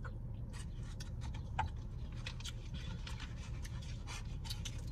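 Close-up mouth sounds of someone eating pizza: chewing with many small, sharp smacking clicks, over a steady low hum.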